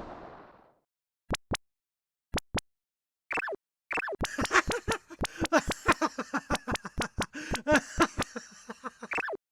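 Cartoon sound effects: the tail of an explosion fading out, then two pairs of short clicks, then a rapid run of springy pops, each dropping in pitch, about five a second, that stops just before the end.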